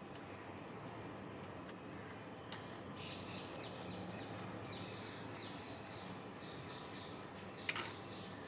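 A bird chirping with short falling calls, several a second, starting about three seconds in, over a low steady hum; a single sharp click near the end.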